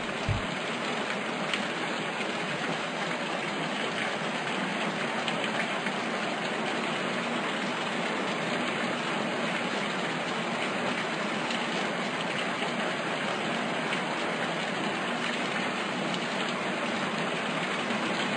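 Steady, even rushing noise like rain, unchanging throughout, with one brief low thump just after the start.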